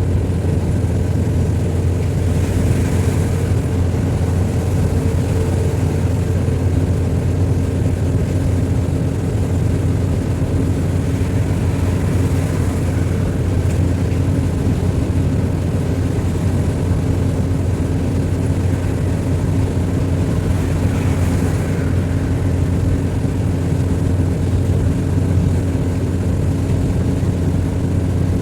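A vehicle engine running at a steady speed: a loud, even, low drone that holds the same pitch throughout.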